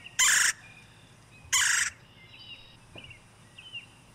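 Red-bellied woodpecker giving two loud trill calls, a little over a second apart, from a phone recording, with faint bird chirps between them.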